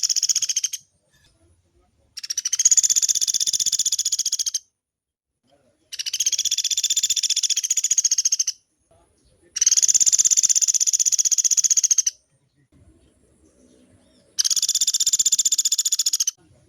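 Pelatuk beras woodpecker giving long, fast rattling trill calls, each lasting about two and a half seconds, with a gap of about a second between them. They are high-pitched and even, repeated five times.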